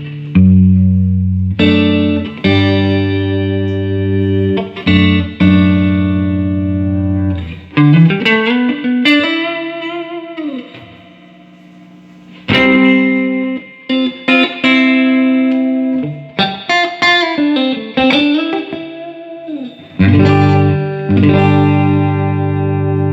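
Electric guitar played through a Fender Hot Rod Deville 2x12 tube amp, freshly serviced with new 6L6GC power tubes, 12AX7 preamp tubes and filter capacitors: chords struck and left ringing, then bent single notes that die away before more chords are struck.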